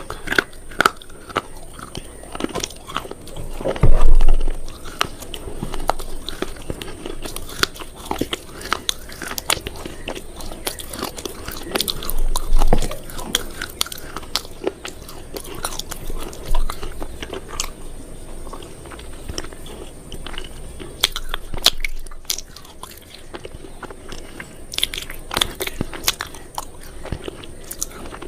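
Close crunching and crackling: many sharp snaps of something crisp breaking, with two louder dull thumps, one about four seconds in and one near the middle.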